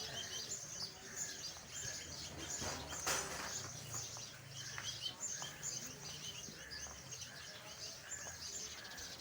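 Many small birds chirping, short high calls repeating quickly and overlapping, with one brief rustle-like burst about three seconds in.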